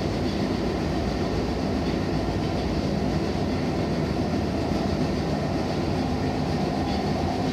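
Nagoya Municipal Subway Higashiyama Line N1000-series train running, heard from inside the car: a steady low noise of wheels and traction motors with no distinct clicks or changes.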